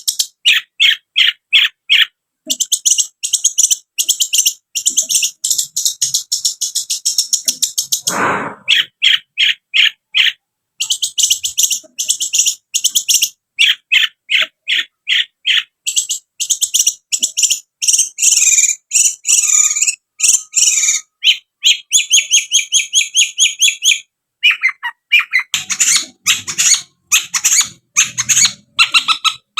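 Long-tailed shrike (cendet) singing a loud, fast song of rapidly repeated short high notes in changing phrases, with a brief falling swoop about eight seconds in.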